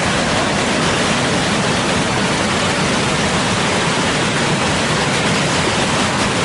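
Mountain creek cascading down smooth rock slabs and between boulders: a loud, steady rush of white water.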